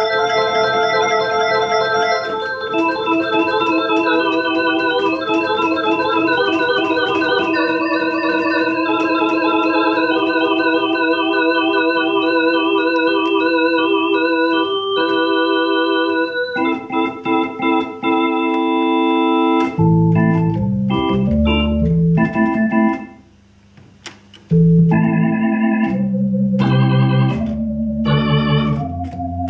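A Soviet Elektronika EM-141 Venta, a Hammond-style drawbar electronic organ, playing held chords with a warbling chorus, Leslie-like effect. About twenty seconds in the playing turns to short, detached chords over low bass notes. It stops briefly, then resumes with warbling chords.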